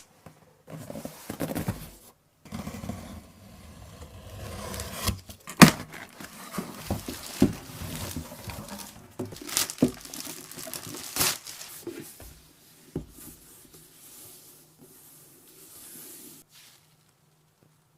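Irregular scraping and crinkling handling noises, broken by several sharp clicks and knocks.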